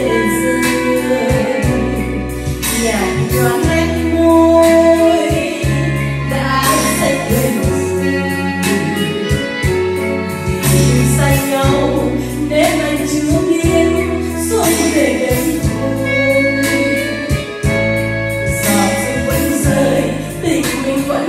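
A woman singing into a handheld microphone over backing music with a steady beat and bass line.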